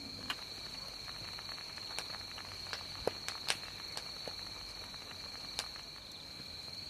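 Steady chorus of crickets, a continuous high trill, with a few faint scattered clicks and taps.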